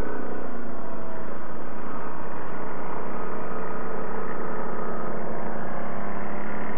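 Engine of a Yamaha ATV fitted with snow tracks, running steadily under way, its pitch shifting up and down with the throttle.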